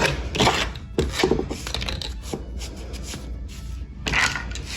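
Hand tool blade scraping and cutting old silicone caulk off a shower joint, in irregular strokes, with a louder cluster of scrapes about four seconds in.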